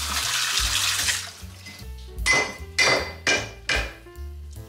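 Water running from a kitchen tap, stopping about a second in, then four clanks of pots or dishes being handled.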